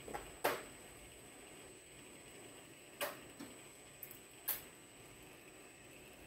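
Small metal parts of a Bosch diesel injector clicking and tapping against a stainless steel bench top as they are handled and set down, with about six sharp ticks spread over several seconds.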